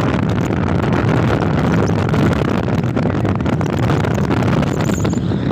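Steady rush of wind over the microphone and road noise from a moving motorbike at speed.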